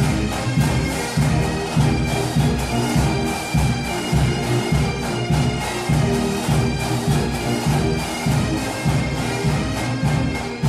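Pipe band playing a quick march: bagpipes with their steady drone and melody over a regular beat of about two pulses a second.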